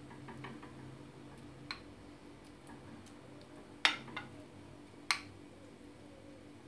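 Scattered sharp clicks of a kitchen utensil knocking against the dishes while butter and honey is spread over cooked chicken, five or so in all, the loudest a little past the middle. A faint steady hum runs underneath.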